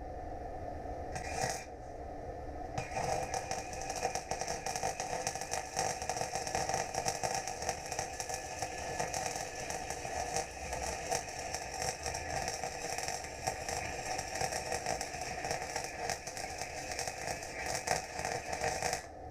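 MIG welder arc crackling: a brief burst, then after a short pause a long, even crackle of about sixteen seconds that cuts off suddenly near the end.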